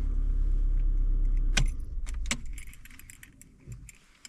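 2016 Ford Fiesta engine idling, then shut off with the key in the newly replaced ignition switch: the engine stops about a second and a half in, with two sharp clicks of the key and the keys jangling as it dies away.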